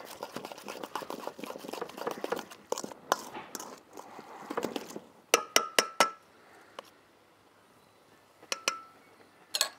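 Cabbage slaw being mixed in a stainless steel bowl, a dense wet rustling for about four seconds, then a quick run of sharp metal clinks with a short ring about five seconds in, and two more clinks near the end.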